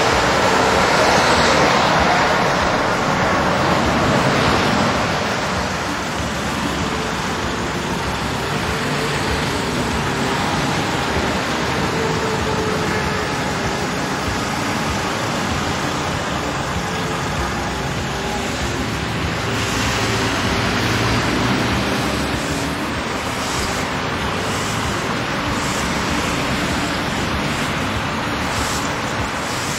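Motorway traffic passing steadily, swelling louder as vehicles go by in the first few seconds and again about two-thirds of the way through. Near the end come a few short scraping strokes, a broom on the asphalt.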